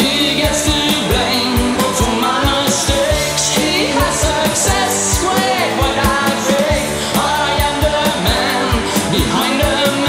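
Rock song playing: a steady drumbeat under a wavering lead voice or guitar line.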